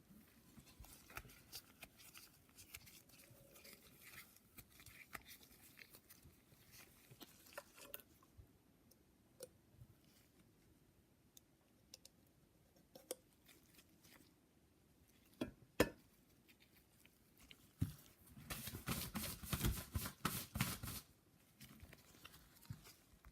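Quiet handling of small engine parts on a workbench: scattered light clicks and taps, two sharp clicks a little past the middle, and a few seconds of rustling, rubbing noise near the end.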